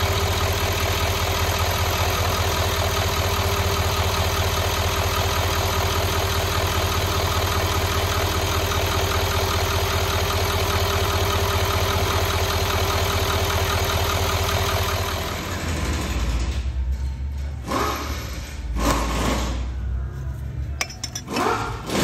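L5P Duramax 6.6 L V8 turbodiesel idling steadily while the cylinder 4 injector connector, loose and fretted, is wiggled to try to bring out an intermittent misfire. After about fifteen seconds the engine sound stops and a few knocks follow.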